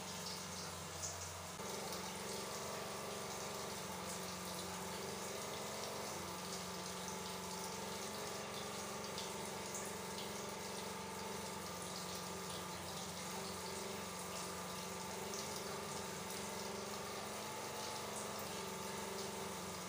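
Water running steadily from a tap, over a steady low hum.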